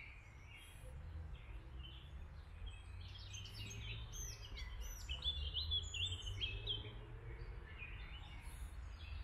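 Several songbirds singing, a spring chorus of short whistled phrases and chirps that is busiest in the middle, over a low steady rumble.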